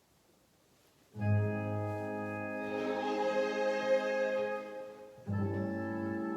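Music starts about a second in with long held chords, one fading out and a new chord entering about four seconds later.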